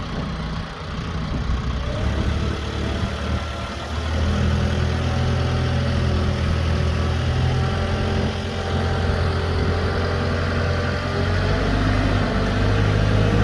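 Branson F Series compact tractor's diesel engine running just after being started, at idle at first and louder from about four seconds in.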